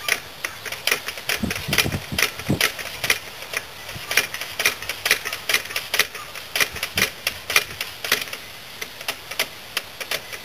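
Rapid, irregular metallic clicking, about two or three clicks a second, as the Yamaha Badger's four-stroke engine is turned over slowly by hand to find top dead centre for cam timing.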